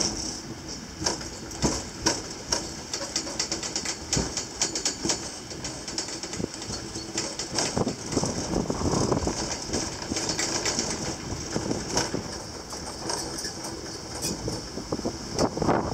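Gelmerbahn funicular car descending its steep track, shaking and creaking, with frequent clicks and knocks from the wheels on the rails and the car body.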